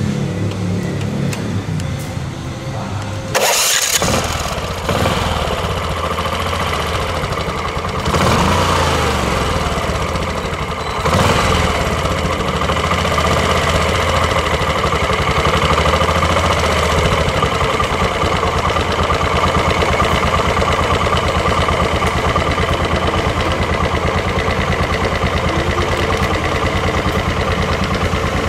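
Stella scooter engine starting with a sudden loud burst about three seconds in, then revved up and down a few times before it settles into a steady idle for the second half.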